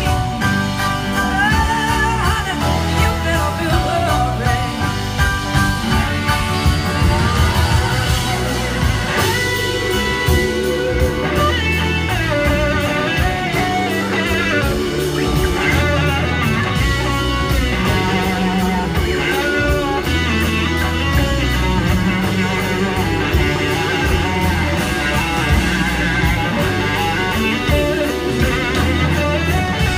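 Live rock-blues band playing, with electric guitar prominent over drums, bass, keyboards and horns, heard from within the audience.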